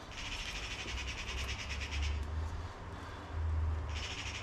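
A small bird singing a rapid high trill for about two seconds, then starting again near the end, over a low rumble.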